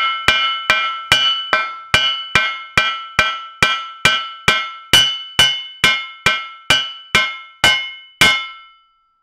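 Steady hammer taps, a little over two a second, on the new axle pivot bush in a Ferguson TED20's cast front axle beam, each blow ringing with a metallic tone; the bush is being tapped back because it sits slightly proud. The taps stop about 8 seconds in.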